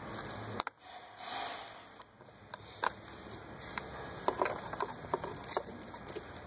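Hand-work on the plastic electrical connectors of ignition coils as they are squeezed, pushed and unplugged. There is one sharp click just over half a second in, then a scatter of small plastic ticks and knocks.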